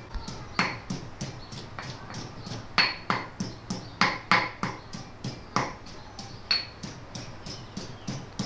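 Kitchen knife chopping rapidly on a cutting board, about four strikes a second, some louder than others.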